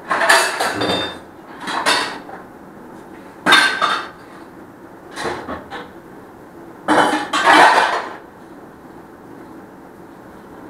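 Steel utensils clattering and scraping in a kitchen sink while being washed, in about five separate bursts, the longest and loudest a little after halfway.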